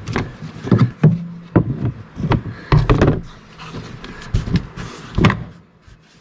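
A series of irregular knocks and clunks as a golf cart's floor plate is set down and pressed into place by hand. The strongest come about a second in and around three seconds, with a last one near five seconds.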